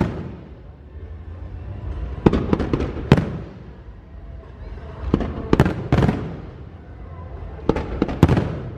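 Aerial fireworks bursting: clusters of sharp bangs come every two to three seconds, each trailing off in a rolling rumble.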